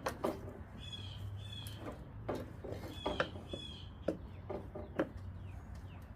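Scattered light knocks and clunks from handling a lawn mower laid on its side, with short paired bird chirps repeating in the background.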